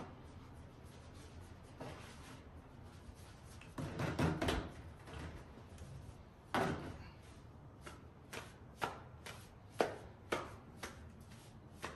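Hands working a small ball of pizza dough on a floured wooden board: a dull thump about a third of the way in, then a sharp knock and a run of short slaps and taps on the dough and board in the second half.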